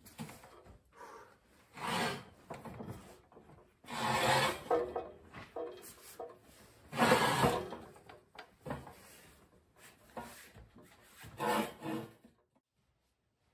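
Four rasping, scraping bursts with quieter scuffing between them, the loudest about seven seconds in.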